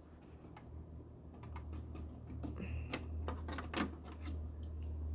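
Irregular clicks and taps of plastic and metal parts being handled inside an opened flat-screen TV, over a steady low hum.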